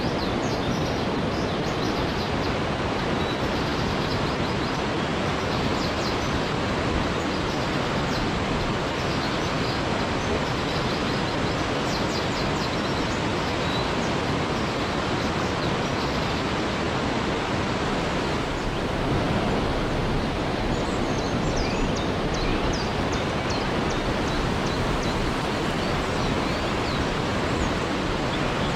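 Waterfall: a steady, even rush of falling water, with faint short high chirps here and there above it.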